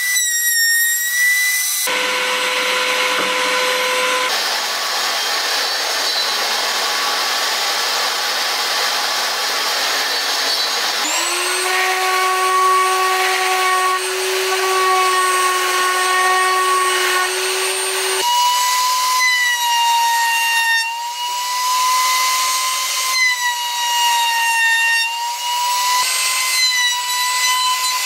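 Electric power tool working pine wood: a steady motor whine over a rushing noise. Its pitch shifts abruptly several times, and one stretch spins up about eleven seconds in.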